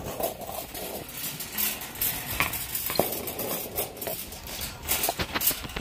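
Phone handling noise: fabric rustling and rubbing against the microphone, with scattered clicks and knocks.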